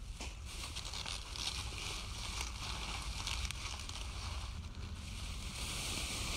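Alaskan malamute chewing in leafy vegetation, with a few soft crunches and rustles over a steady background hiss.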